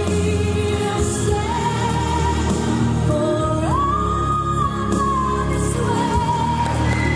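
A song with a singing voice over a steady accompaniment, played for a formal couples' dance. The melody moves in long held notes and leaps up to a long high note about halfway through.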